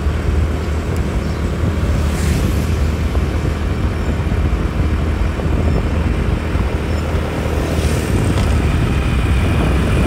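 Motor vehicle running steadily, a strong low rumble under a rushing noise, cutting off abruptly at the end.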